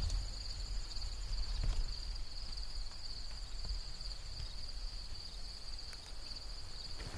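Insects trilling in a steady high-pitched chorus without a break, over a low rumble.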